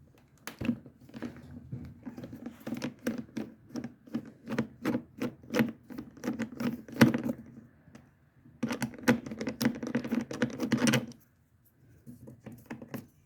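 A hand tool with a T27 Torx bit turning out a bolt, making a run of sharp clicks. The clicks come about three or four a second, stop briefly around two-thirds of the way through, then come faster for a couple of seconds before stopping.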